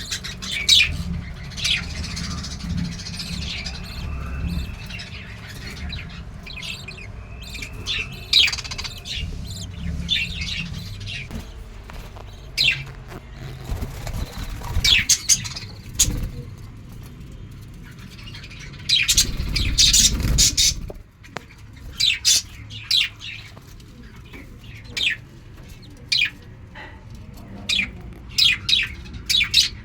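Lovebirds calling: many short, sharp high chirps coming in clusters, with a low rumble underneath that swells about two-thirds of the way through.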